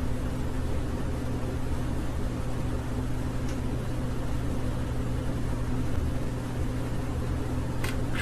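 A steady low electrical or mechanical hum over even hiss, with a faint short high sound about three and a half seconds in and another near the end.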